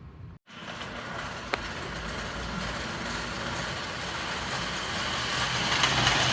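A 1949 Lionel 671 turbine O-gauge toy locomotive running on its track: a steady whir of its electric motor and gears with the wheels rolling on the rails, growing louder. A single sharp click about a second and a half in.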